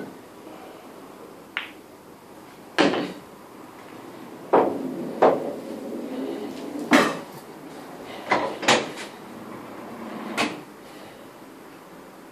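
Pool balls and cue clacking: a light click, then a string of sharp, irregularly spaced knocks as balls strike one another and the cushions.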